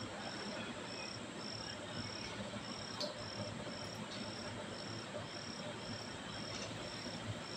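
A cricket chirping steadily, about two high-pitched chirps a second, over a faint background hiss, with a light click about three seconds in.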